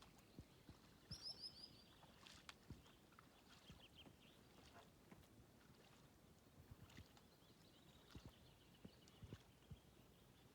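Faint birdsong: a quick falling series of high chirps about a second in, then trilled phrases near the middle. Under it are scattered soft ticks and drips, the kind water and a kayak paddle make.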